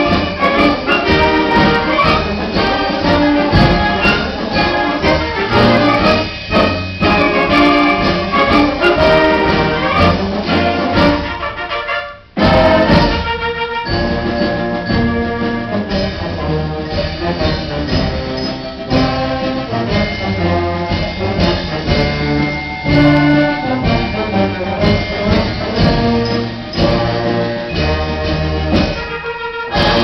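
Symphonic concert band playing live, brass prominent with trombones and trumpets. About twelve seconds in the band breaks off for a moment, then the full band comes back in.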